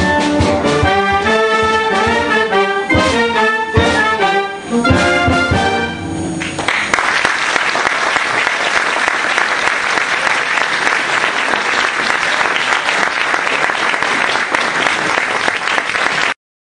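Concert wind band playing the closing bars of a piece, brass chords with drum strokes, which end about six and a half seconds in. An audience then applauds steadily for about ten seconds until the sound cuts off abruptly.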